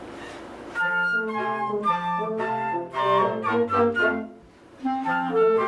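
A military concert band's woodwinds, clarinet and flute, playing a melody that comes in about a second in, with a short break a little past the middle before the notes resume.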